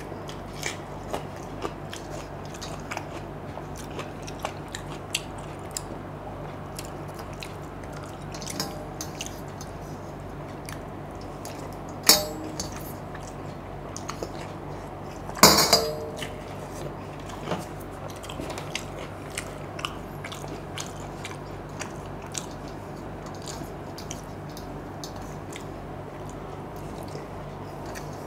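Close-miked eating by hand: wet fermented rice (panta bhat) scooped from a steel plate and chewed, with small wet clicks and smacks throughout over a steady low hum. Two louder sharp knocks or crunches come near the middle, about three seconds apart, the second with a short ring.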